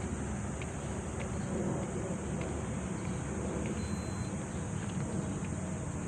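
Open-air city park ambience: a steady low rumble of distant traffic under a constant high hiss, with small faint chirps every half second or so and one brief thin beep about four seconds in.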